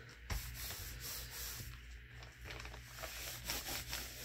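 Paper rustling and sliding as notebook pages and pieces of patterned paper are handled and turned, with a sharp tap about a third of a second in and a flurry of rustles near the end.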